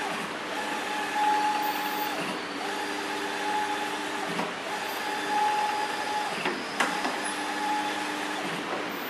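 HAR-T1802T 1.8 m sublimation textile printer running a print job: a steady whine from its moving print-head carriage breaks off briefly about every two seconds as each pass ends and the carriage reverses. There is a sharp click about seven seconds in.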